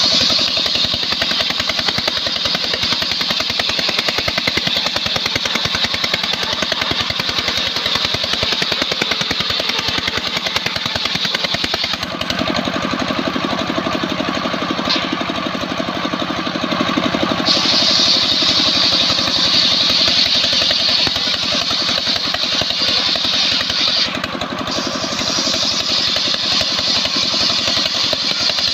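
Engine-driven homemade circular saw bench ripping albasia (sengon) timber: the engine runs steadily under the blade. A high whine rides over it, easing about twelve seconds in, coming back strongly a few seconds later, and breaking briefly near the end.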